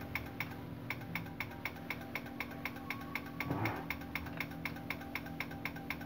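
Relay on a General Electric microwave's control board chattering, clicking rapidly and evenly at about five clicks a second over a steady low hum. The chattering is the board's fault, which the repairer traces to a weak 220 µF capacitor starving the relay of current so that it pulls in and drops out.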